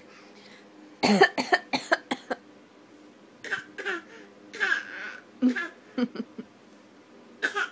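Baby's imitation coughs, done on purpose: a quick run of about six short, sharp coughs about a second in, then more scattered coughs and throaty little voice sounds, and one more cough near the end.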